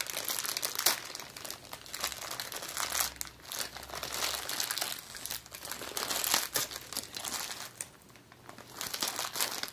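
Plastic packaging crinkling and rustling as it is handled, in irregular bursts that ease off briefly near the end.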